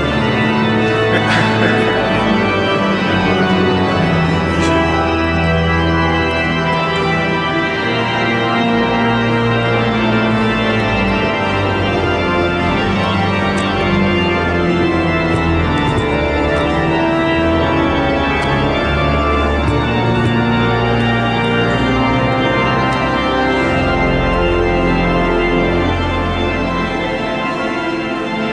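Pipe organ music: slow sustained chords over long held bass notes.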